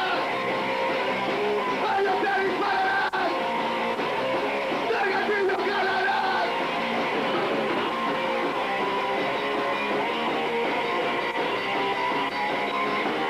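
Punk band playing live, loud guitar-driven rock music that runs without a break.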